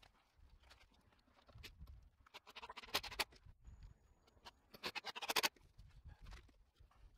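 Two short bursts of rapid clicking and rattling, about three seconds in and again more loudly about five seconds in, from small screws and parts being handled and rummaged for in a tool bag. Scattered single clicks fall between them.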